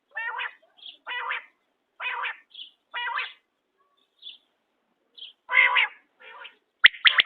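Quail calling: short, pulsed calls repeated about once a second, with a pause of about two seconds in the middle and a few faint high notes between the calls.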